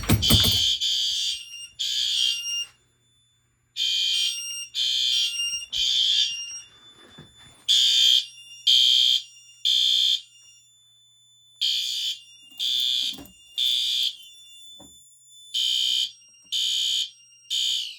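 A loud snap as a stiff glass-rod pull station is yanked. Then fire alarm horns sound in the temporal-three evacuation pattern: three short high-pitched blasts, a pause of about a second, repeating.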